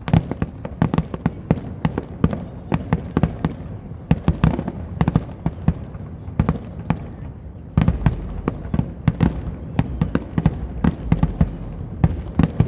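Fireworks display: a rapid, uneven run of bangs and crackles. From about eight seconds in it grows heavier, with a deeper rumble under the reports.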